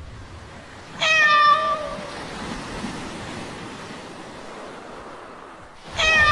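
A cat meowing twice, each meow under a second and dropping slightly in pitch at the end, the second starting near the end, over a steady background hiss.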